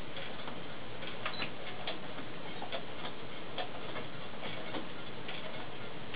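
Brother computerized sewing machine running steadily as it stitches a seam through fabric, with light, even ticks from the needle mechanism.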